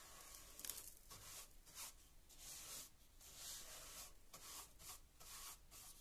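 Flat paint brush bristles sweeping dust and grit across a wooden stair tread in quiet, short strokes, about one a second.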